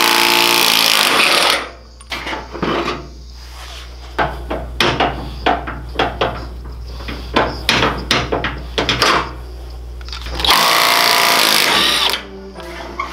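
Cordless impact wrench hammering the wheel nuts off a go-kart's wheel, in two loud bursts of about two seconds, one at the start and one near the end. In between come many short metallic clinks and knocks of tools and parts being handled.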